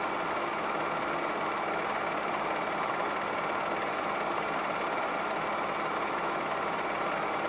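Super 8 film projector running, its motor and film transport making a steady, rapid, even clatter.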